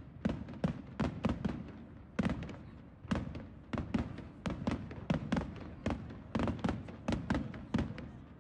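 Aerial fireworks shells bursting in a rapid, irregular volley of sharp bangs, two or three a second, with a brief pause about two seconds in, stopping near the end.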